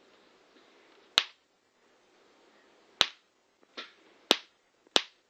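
Electric flyswatter racket's charged wire mesh arcing with sharp snaps, five in all at irregular gaps of about half a second to two seconds, the third weaker than the rest: the grid discharging into a bug.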